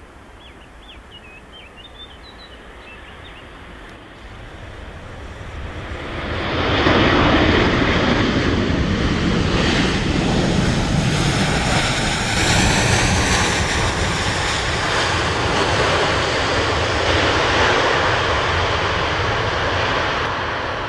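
Faint birds chirping, then Boeing 737 twin jet engines swell over a couple of seconds, about five seconds in, to a loud steady roar as the airliner rolls along the runway, with a brief gliding whine in the middle.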